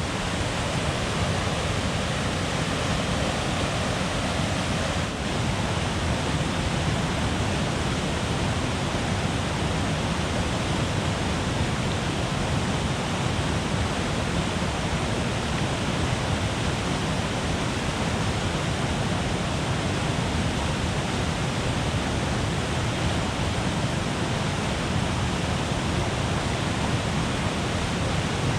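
Strong Falls, a natural waterfall on the Peshtigo River, pouring over rocks in a steady, unbroken rush of water.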